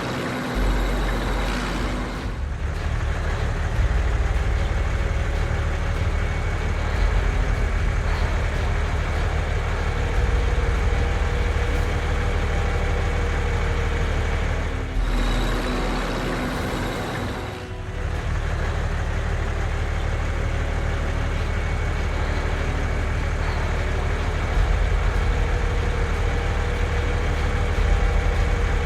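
Heavy truck engine running steadily with a low rumble, its sound breaking off briefly a couple of times.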